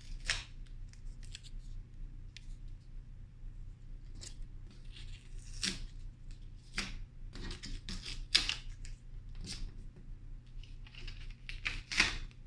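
Paper cut-outs crinkling and tapping as they are handled and pressed onto an easel board, in irregular short rustles with a few sharper taps, over a low steady hum.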